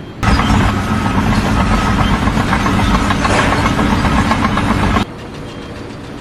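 A loud engine running steadily, with a dense rattle over it; it cuts off suddenly about five seconds in, leaving a quieter steady noise.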